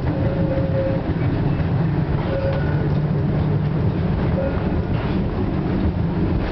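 FVV CSM-4 tram running along its street track, heard from inside the driver's cab: a steady rumble of motors and wheels on the rails, with a few brief faint whines and a couple of clicks about five seconds in.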